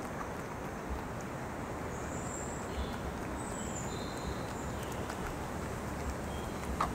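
Strong wind on the microphone: a steady rushing hiss with low buffeting thumps. Faint high bird calls come through about two to four seconds in, and a short sharp click near the end.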